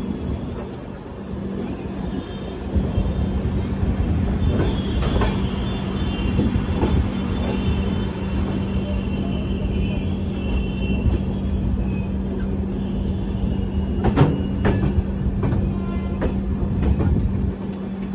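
An Indian express train's LHB coach running slowly through a station, heard from beside the coach: a steady rumble of wheels on the track with a low hum. Faint high wheel squeal comes through in the middle, and a quick run of sharp clacks as the wheels cross the track comes about fourteen seconds in.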